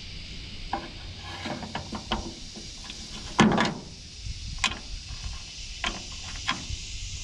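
Rummaging through a toolbox: objects knocking and clicking as they are picked up and moved, the loudest a clunk about three and a half seconds in.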